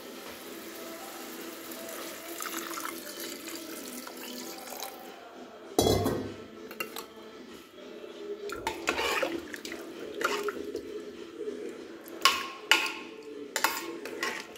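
Water poured into an aluminium pressure cooker of rice and vegetables, a steady splashing pour for about five seconds. Then a single knock, followed by a metal spoon scraping and clinking against the cooker as the rice is stirred.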